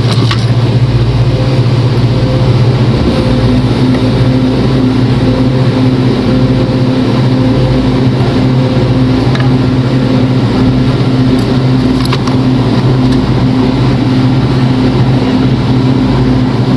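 A machine running steadily with a loud, even low hum that holds a constant pitch.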